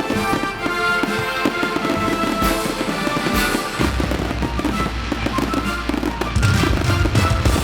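Fireworks going off over a music soundtrack, with scattered sharp bangs among the music. A deep bass comes into the music a little past halfway and grows louder near the end.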